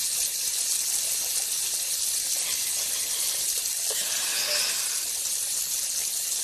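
Steady hiss of rushing water.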